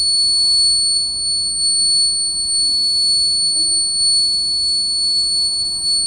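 9 V buzzer of a homemade LDR laser alarm sounding a steady, unbroken high-pitched tone: the alarm circuit is triggered.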